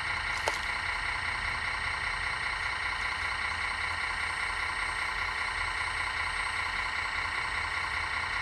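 Radio-controlled construction models running steadily: an even high whine over a low hum that does not change, with one sharp click about half a second in.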